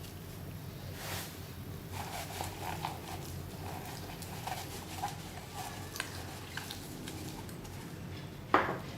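Faint handling noises of utensils and jars being cleaned with alcohol: scattered light taps and clinks, with a brief hiss about a second in and another near the end.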